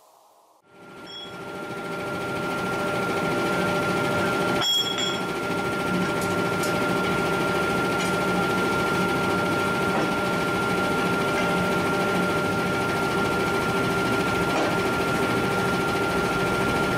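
Machinery running with a steady drone and a high steady whine over it, starting a little under a second in, with one sharp metallic clink about five seconds in.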